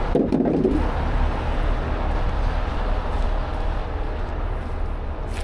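Steady low rumble of idling heavy tow-truck diesel engines. Just under a second in, a wooden cribbing block scrapes onto the transporter's wooden deck.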